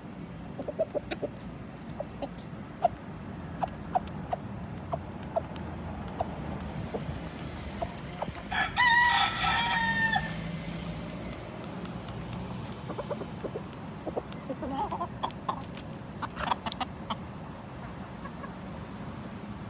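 Rooster crowing once, about nine seconds in, a loud call lasting nearly two seconds. Around it, scattered short clucks and taps from chickens pecking on the sidewalk.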